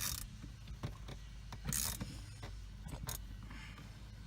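Ratchet wrench clicking in short strokes as the steering hub nut is tightened down: one stroke at the start, another about a second and a half later, then a few faint ticks.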